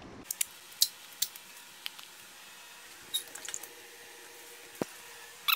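Scattered light clicks and taps, a few each second at uneven intervals. A short squeaky chirp starts at the very end.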